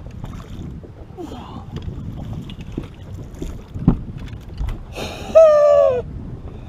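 A man's long triumphant yell about five seconds in, one held call falling slightly in pitch, the loudest sound here. Just before it a dull thump as the landing net with the bass comes aboard, over steady wind and water noise on the boat deck.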